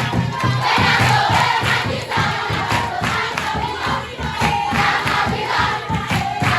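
A group of voices singing together over a steady rhythmic beat.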